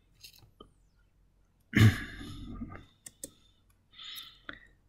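Computer keyboard keys clicking in scattered strokes while a command is typed. About two seconds in there is a loud breath into the microphone, the loudest sound here.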